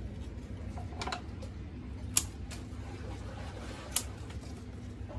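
Hand pruning snips closing on a tomato stem: two sharp snips, about two seconds apart, with a fainter click before them, over a steady low rumble.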